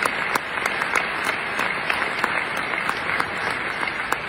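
Audience applauding, with many sharp separate claps close by, some from the next seat; the applause eases off near the end.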